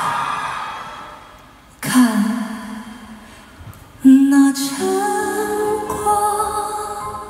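Live concert music: a high male voice holds a wavering note that fades out, then sustained chords from the band come in suddenly at about two seconds and again at about four seconds, with held notes building over them.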